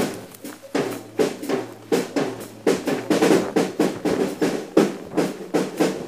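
Drum kit playing a steady, busy beat of snare and bass drum hits, about four or five strokes a second.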